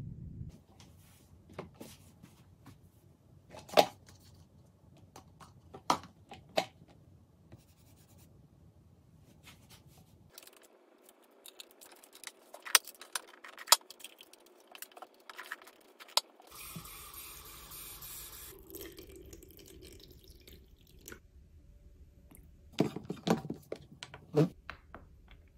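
Scattered clicks and light knocks of hands handling a small glass bottle and the white plastic parts of an aroma diffuser on a wooden desk, with a short pour of water about two-thirds through.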